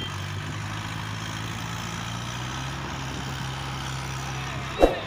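Tractor diesel engines running steadily as one tractor hauls another, stuck in deep mud, on a tow chain. A single sharp bang cuts in near the end.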